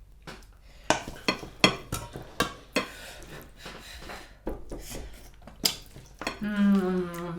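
Cutlery and serving utensils clinking and scraping against plates and dishes as food is served, in a quick string of separate clicks.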